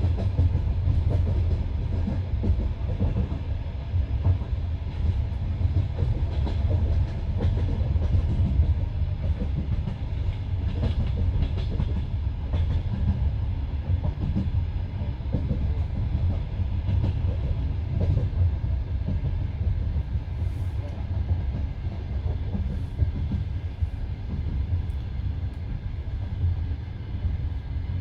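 Passenger train carriage running along the line, heard from inside the car: a steady low rumble of the wheels on the rails, with the repeated clack of the wheels over rail joints.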